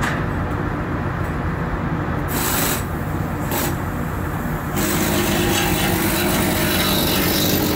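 Steady machinery drone with rubbing and scraping of metal as an electric fan motor's rotor is lowered into its stator. A hiss joins about five seconds in.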